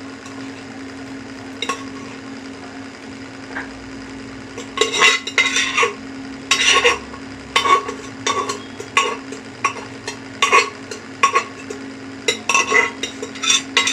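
Metal spoon scraping and knocking against the inside of an aluminium pressure-cooker pot as boiled pulses are tipped out into a kadai. After a few isolated clicks, a busy run of ringing clinks and scrapes starts about five seconds in, over a steady low hum.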